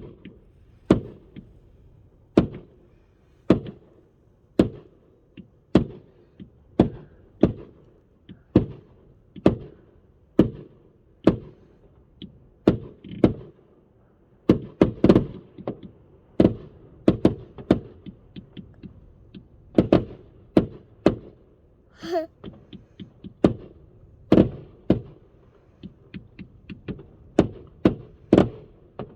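Röder 'Jubelbox' compound firework cake firing its shots in sequence, each a sharp thump. The shots come about once a second at first, then turn faster and denser about halfway through, with a brief hiss about two-thirds of the way in.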